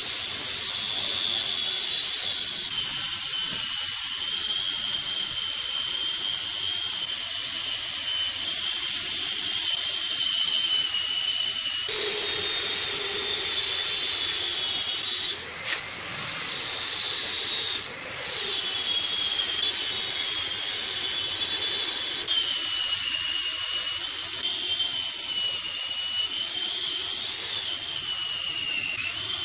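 Large wood lathe running with a tool cutting the spinning wood: a steady high-pitched whine over a hiss, dipping briefly twice about halfway through.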